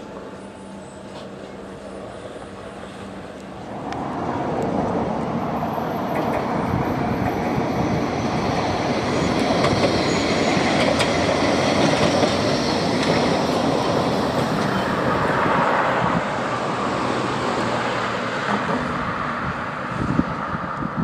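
Electric tram running on its rails past the microphone. A low hum at first gives way about four seconds in to wheel-and-track running noise, which is loudest midway and then eases off.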